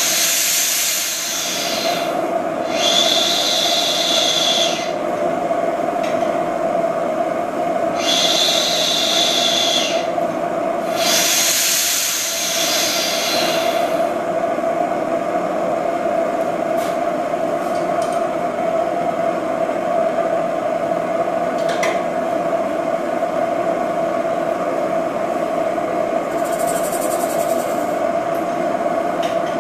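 A steady drone from the oilfield engine and gas setup runs throughout. Loud hissing bursts, each lasting two to three seconds, come four times in the first half, with a fainter one near the end.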